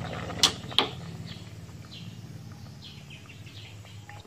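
A pot of curry bubbling on the stove under a steady low hum, with two sharp clicks about half a second and a second in. Faint bird chirps sound in the background.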